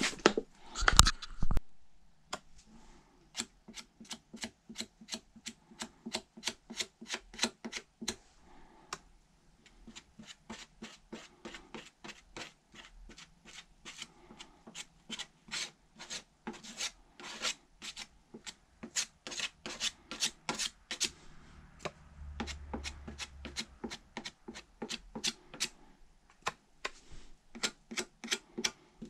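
Hand sanding on a car fender with sandpaper: quick, regular back-and-forth strokes, a few a second, with a short break about nine seconds in. A loud thump about a second in.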